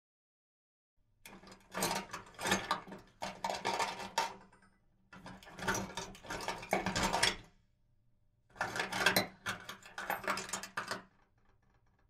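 Metal tools clattering and clinking in a toolbox, in three separate bursts of two to three seconds each, the first starting about a second in.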